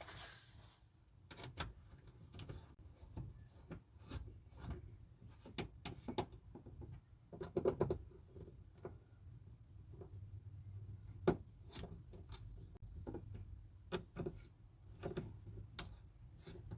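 Scattered light clicks and knocks of hand work on the car door's inner parts and fasteners, with short, high chirps repeating now and then.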